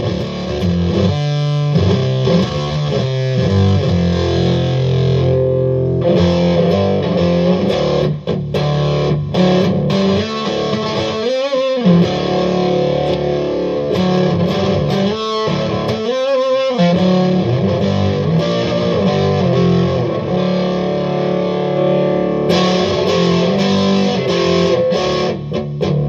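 Electric guitar played through a Harmonic Punkulator, a Harmonic Percolator-style fuzz pedal: thick, distorted chords ringing out and changing as it is played.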